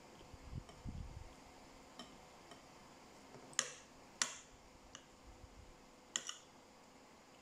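Metal spoon and fork clinking against a ceramic plate of rice: a few faint ticks, then three sharper clinks a little past halfway and near the end. Soft low thuds in the first second.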